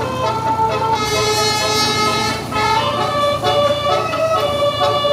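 Bus telolet horn, a set of air horns sounding several notes at once and stepping through a quick tune, played in full. A steady low engine hum sits underneath.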